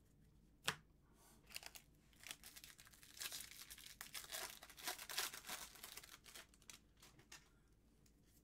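A baseball card pack's wrapper being torn open and crinkled, a dense crackling rustle that runs for several seconds. A single sharp click just under a second in is the loudest sound.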